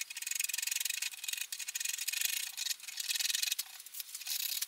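Hand sanding on the edge of a maple guitar headstock with a small piece of sandpaper held in the fingers, a run of quick rubbing strokes broken by brief pauses, taking out stain that bled through onto the bare maple.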